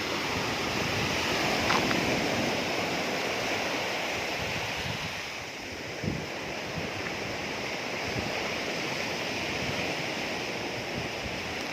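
Surf washing on a beach, a steady rushing that swells slightly about two seconds in and eases around the middle, with some wind on the microphone.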